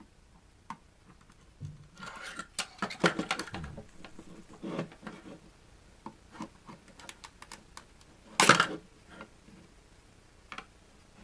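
An adhesive sticker being peeled off a plastic electronics housing: irregular crackling and scratching with scattered clicks of the plastic being handled. There is one louder, short burst of noise about eight and a half seconds in.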